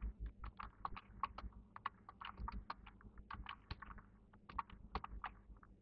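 Faint computer keyboard typing: an irregular run of short key clicks, several a second, as a few words are typed. A faint steady low hum lies underneath.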